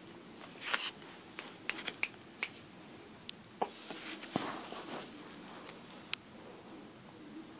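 Close handling noise: a dozen or so small sharp clicks and brief rustles from a hand moving the phone and brushing the cat's fur, over a faint steady high-pitched tone.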